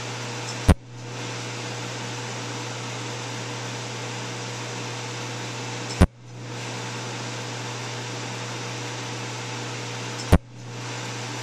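Cutera laser firing three single pulses, each a sharp snap, about five seconds apart, over a steady machine hum.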